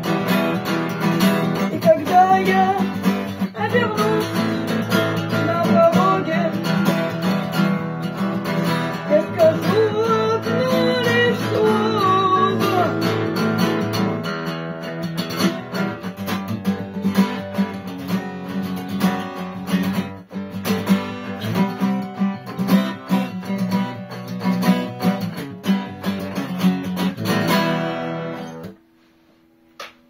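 Steel-string acoustic guitar strummed in steady chords, with a voice singing over it through roughly the first half. The strumming then carries on alone and stops abruptly near the end.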